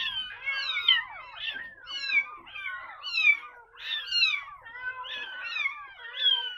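Very young kittens, eyes not yet open, mewing over and over in high, falling cries that overlap one another, about one to two a second. They are hungry and struggling to take the feeding bottle.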